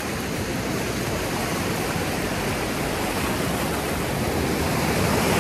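Steady rush of ocean surf, small waves and foam washing through the shallows, growing a little louder near the end.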